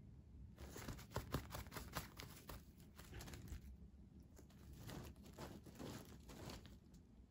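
Faint rustling and light scrabbling of a fabric cat tunnel as a Ragdoll kitten tussles inside it, in two bouts of quick rustles and scratches, the first starting about half a second in and the second a little after the middle.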